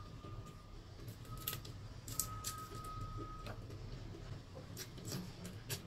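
An electronic timer beeping a steady high tone three times, the last beep lasting over a second, with small sharp clicks from hands pulling apart boiled shrimp.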